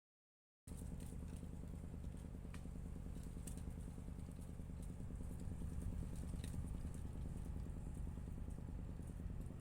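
An engine running steadily at an even speed, starting abruptly after a brief dead silence less than a second in.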